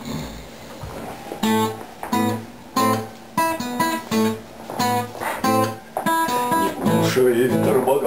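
Acoustic guitar strummed in sharp chords, about two a second, starting about a second and a half in.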